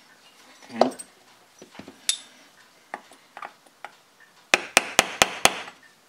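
Small hand tools handled on a rubber workbench mat: scattered clicks and knocks, then a run of five quick, sharp taps near the end.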